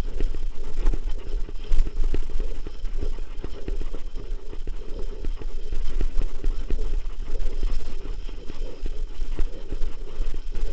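Mountain bike climbing over rough, cracked sandy ground, heard through a camera mounted on the rider or bike: a constant clatter of irregular knocks and rattles, over a low rumble of wind on the microphone.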